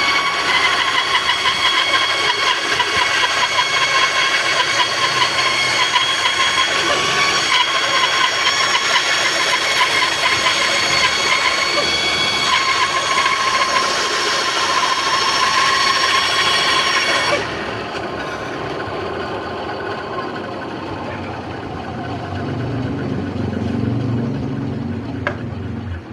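Band saw cutting wood: a loud, steady machine whine with a fine fast rasp of the blade teeth. About 17 seconds in the high cutting noise drops away, leaving a quieter, lower running hum.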